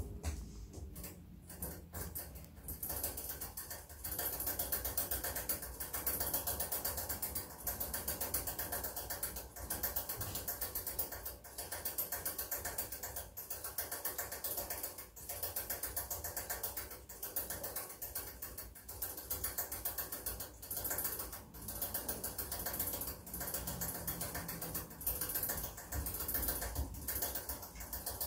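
Rabbit drinking from a hanging water bottle: the metal drinking tube clicks and rattles rapidly as the rabbit licks it, in runs of a second or two with short pauses between.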